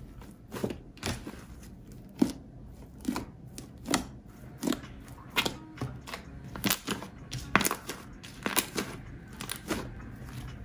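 Pink fluffy slime being stretched, squeezed and kneaded by hand, giving a string of short sticky squelches and air pops, a little over one a second and irregular.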